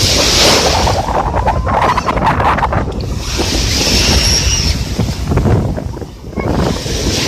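Sea of Azov surf washing ashore in hissing surges about every three to four seconds, under heavy wind buffeting the microphone.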